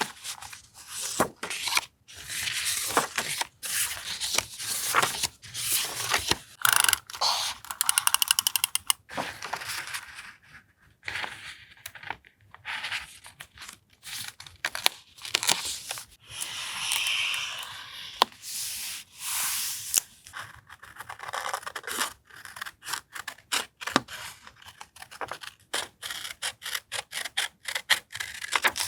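Paper and stationery being handled, torn and cut for a journal collage: rustling, tearing and scraping strokes with many small taps and clicks, and a fast run of tiny clicks about eight seconds in.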